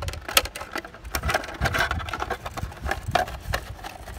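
Irregular light plastic clicks and knocks as the body shell is pressed and settled onto a Tamiya DT-03 radio-controlled buggy chassis by hand.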